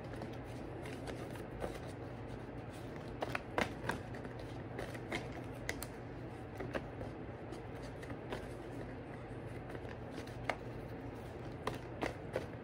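A tarot deck being shuffled by hand: irregular soft snaps and flicks of cards, a dozen or so scattered through, over a steady low hum.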